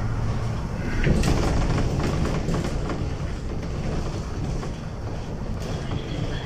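City bus in motion, heard from inside: steady engine and road rumble with scattered rattles and knocks from the body.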